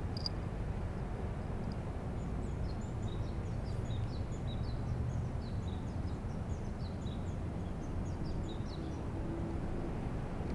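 Small birds twittering, a quick run of short high chirps lasting several seconds, over a steady low rumble of background noise.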